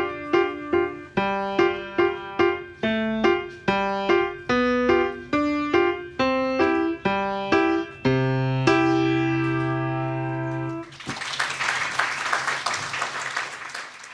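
Essex grand piano playing a simple tune in steady, evenly spaced notes, ending on a long held final chord. About eleven seconds in, audience applause starts.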